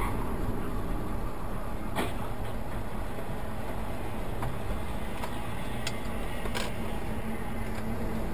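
Steady road and engine noise inside a moving car's cabin, picked up by a dashcam microphone, with a few faint clicks.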